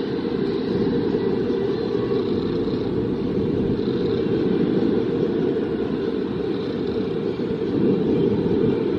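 Steady low, muffled rumble of a large indoor amusement park hall: the background ambience of rides and ventilation, with no single event standing out.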